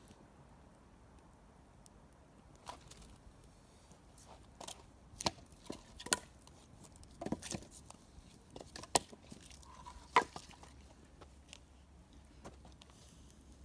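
Campfire crackling, burning wood giving off irregular sharp pops and snaps over a quiet background, the loudest few in the middle of the stretch.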